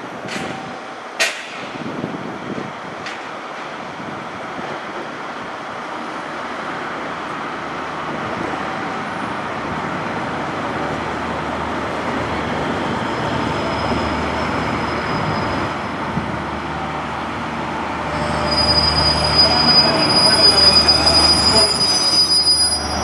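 JR Kyushu KiHa 66/67 diesel multiple unit pulling into the platform, its engine and wheel rumble growing steadily louder as it approaches. Over the last few seconds a steady high brake squeal rings out as it slows. A few sharp clicks sound at the start.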